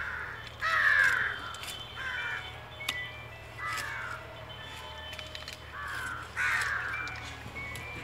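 Crows cawing repeatedly: a string of harsh calls roughly a second apart, the loudest about a second in.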